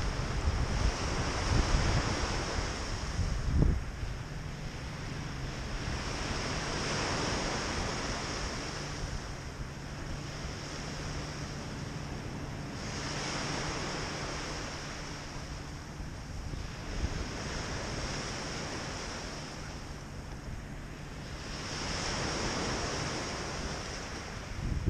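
Small Lake Superior waves breaking and washing up a pebble beach, swelling and fading about every five to six seconds. Wind buffets the microphone during the first few seconds.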